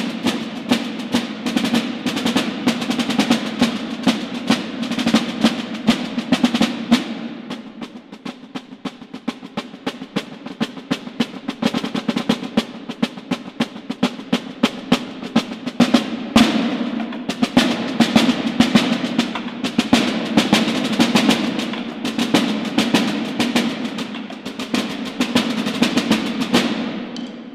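Two side drums playing a drum march with fast rolls and crisp strokes. It drops to a softer passage about a third of the way through, builds back up and stops near the end.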